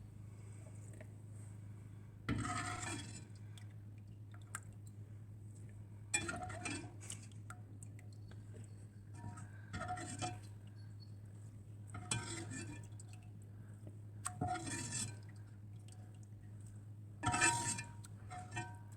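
A metal utensil scraping and clinking against a cast iron pot about six times, a few seconds apart, as the fried-out meaty bits are scooped from rendering fat. A low steady hum runs underneath.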